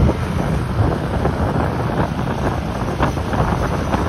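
Wind buffeting the microphone of a moving motorbike, over the steady low hum of its engine and the traffic around it.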